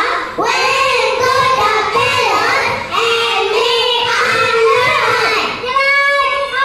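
A group of young children singing together in unison, phrase after phrase, with some notes held for a second or so.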